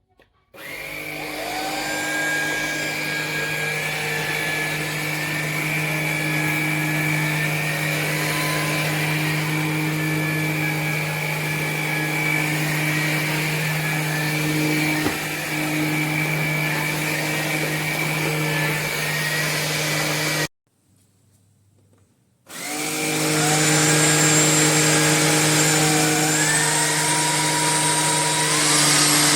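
Tineco A30S cordless stick vacuum running, a steady motor hum under a high whine that shifts in pitch now and then. It switches off about twenty seconds in, then starts again two seconds later and runs louder.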